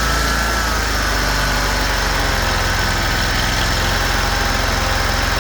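Kawasaki 19-horsepower engine of an eXmark Lazer Z zero-turn mower being throttled down, its pitch dropping slightly in the first second and then settling into a steady, smooth idle.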